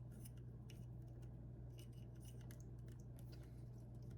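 Faint, scattered clicks and light scratching of small model-kit parts being handled and fitted together, over a steady low electrical hum.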